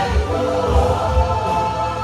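Gospel worship song playing, with held tones over a steady low beat.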